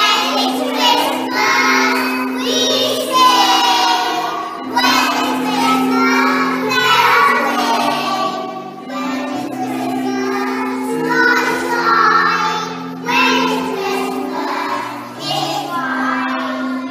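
A group of young children singing a song together in unison, over a steady instrumental accompaniment with held low notes.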